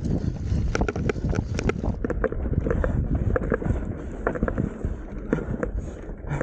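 Mountain bike riding over rutted ground, its frame and parts rattling and knocking with many short sharp clicks, under the steady rumble of wind buffeting the microphone.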